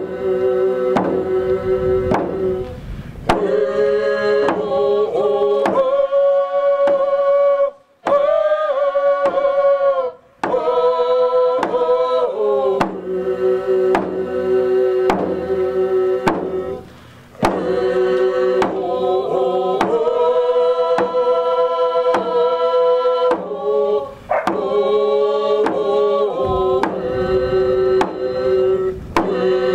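Singers chanting a Native hand-drum song in unison, the voices carried over a steady, even drumbeat on hand-held frame drums, with brief pauses between phrases. It is the song that opens the gathering as a prayer.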